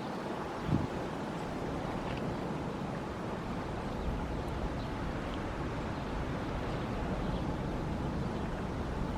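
Wind blowing across the microphone as a steady rush, with a short gust thump about a second in.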